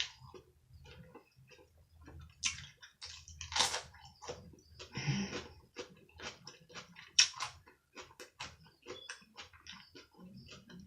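A person chewing food close to the microphone: irregular wet mouth clicks and smacks, with a longer noisy stretch about five seconds in.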